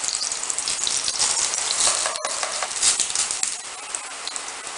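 Sliced garlic sizzling and crackling in hot oil in a pan as it golden-fries into garlic chips, with a brief gap about two seconds in and a slightly softer sizzle near the end.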